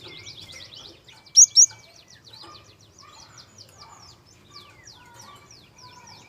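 Gelatik birdsong used as a lure: a fast, continuous run of high, quick down-sweeping notes, with two loud sharp chirps about a second and a half in.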